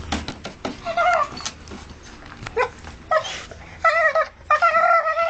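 Pit bull whining in several high, wavering squeals, the longest held near the end, while gnawing at a wooden pallet; sharp knocks and cracks of teeth on wood come in the first second.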